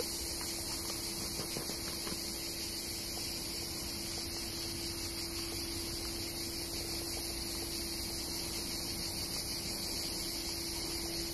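A steady, high-pitched insect chorus, such as crickets or cicadas, with a faint steady low hum beneath it.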